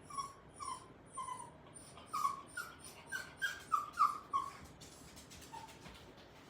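Cavalier King Charles spaniel puppy whining: a quick run of about ten short, high whimpers, each sliding down in pitch and climbing higher and louder toward the middle, then a single faint one near the end. It is begging for a toy to be thrown.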